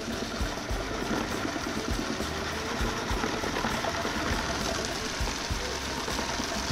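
Hummus Pro commercial food processor running steadily on low speed, its blade spinning through the garlic sauce while the oil is slowly added to emulsify it, with irregular low thumps.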